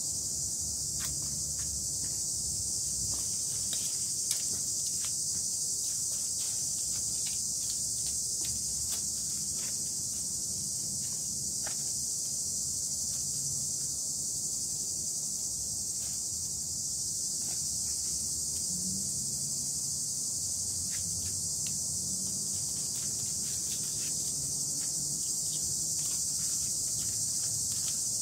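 A steady, high-pitched chorus of insects, unbroken throughout, with a few faint ticks and rustles over it.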